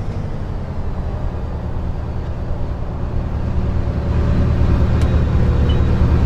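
Double-decker bus engine and drivetrain running with a steady low drone, heard from inside the passenger saloon, getting a little louder in the second half as the bus drives on. A single faint click comes about five seconds in.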